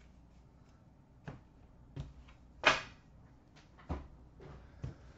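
A handful of sharp taps and knocks as objects are handled and set down on a glass display counter, about six in all, the loudest a little past halfway.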